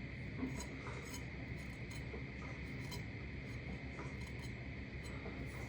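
Quiet room tone: a steady faint hum and hiss with a few soft, isolated light clicks.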